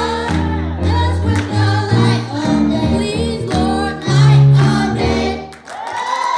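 Gospel music with a choir singing over bass and keyboard; the music dips briefly near the end, then a new held chord comes in.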